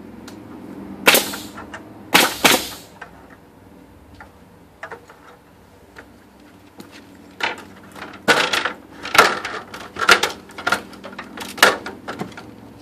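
Pneumatic nail gun driving nails into wood framing: two loud shots about a second apart, each with a brief hiss of air. A run of sharper shots and knocks follows, about one a second, through the second half.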